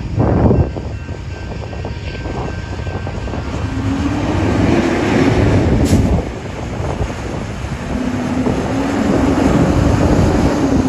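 Heavy diesel dump truck hauling a trailer with a loader pulling away from a stop, its engine note swelling twice as it gathers speed. Strong wind buffets the microphone, hardest just after the start, and there is one sharp click about six seconds in.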